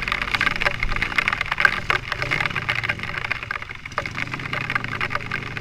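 Vehicle engine running with a low steady hum under dense crackling and clicking noise.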